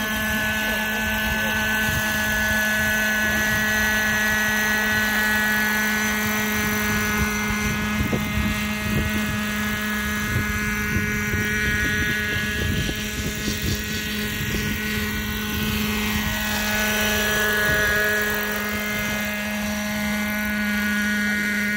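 Radio-controlled scale model helicopter hovering and flying low, its rotor and motor giving a steady hum with a whine above it, shifting a little in pitch and loudness as it moves around.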